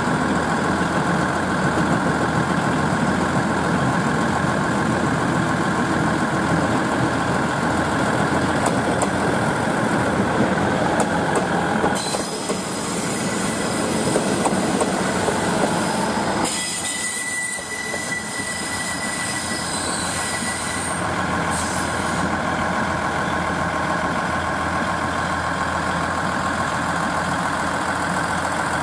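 JR East KiHa 110-series diesel railcars passing slowly close by: diesel engines running and wheels rolling over the rails. The sound changes suddenly about twelve seconds in and again a few seconds later as different cars go by.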